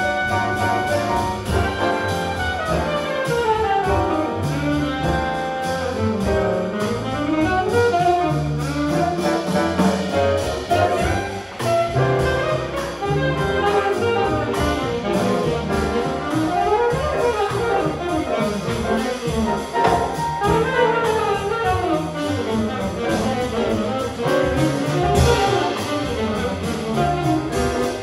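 Saxophone improvising a jazz solo in quick runs that sweep up and down, over piano, double bass and drums with steady cymbal strokes.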